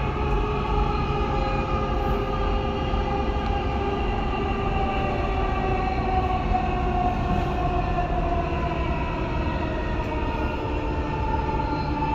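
Dubai Metro train running, heard from inside the carriage: a steady low rumble with a faint motor whine that slowly falls in pitch.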